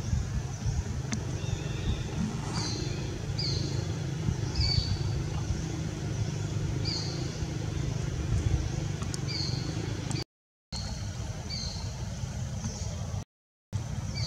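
Outdoor ambience: a steady low rumble with short high chirps recurring about once a second. The sound cuts out completely twice, briefly, near the end.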